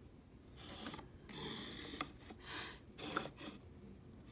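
Plastic toy packaging trays being handled and set down on a table: a few short scraping rustles with a couple of light clicks.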